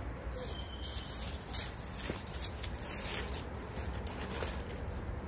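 Puppies scuffling over dry leaves on brick pavers: irregular rustling and crackling of the leaves, with a few sharper crackles in the first three seconds.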